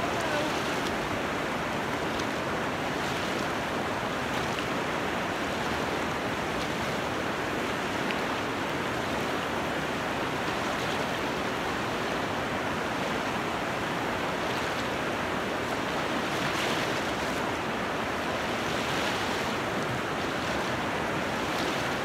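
Steady rush of stream water running high after heavy rain.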